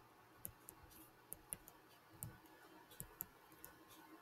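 Near silence broken by a dozen or so faint, irregular clicks and taps from handwriting on a screen with a digital pen.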